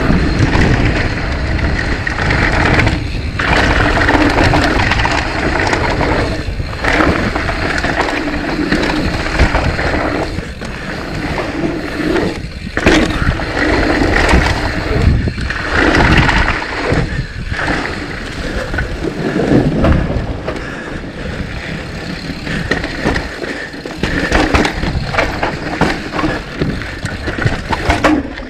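Mountain bike rolling fast down a dirt trail: a continuous rumble of tyres over the ground with wind noise, easing briefly a few times.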